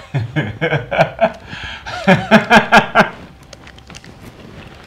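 A man laughing hard, a run of loud rhythmic 'ha-ha' pulses that is strongest about two to three seconds in and then dies away.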